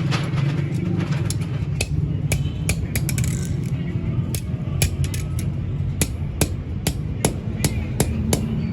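Hammer blows on metal in a blacksmith's forging work: sharp ringing strikes, roughly two a second at an uneven pace. A steady low hum of machinery runs underneath.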